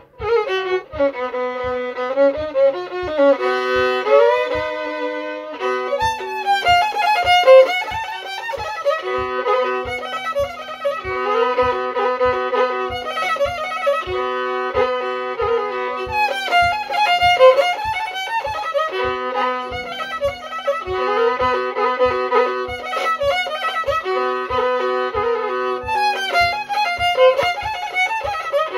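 Solo violin, a homemade fiddle with a carved animal-head scroll, bowing a melody with a held lower note sounding beneath it much of the time. A steady low tap about twice a second keeps time underneath.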